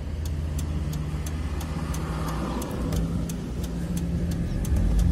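Car engine running, heard from inside the cabin, with a regular ticking about three times a second.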